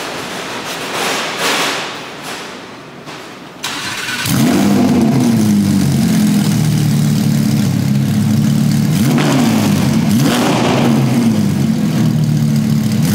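Audi R8's V10 engine starting up about four seconds in with a sudden loud catch, then settling into a steady high idle, its pitch dipping and rising twice later on.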